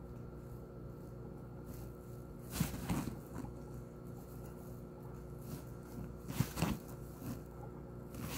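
Steady low machine hum, with two short bursts of clattering knocks, about a third of the way in and about three quarters through.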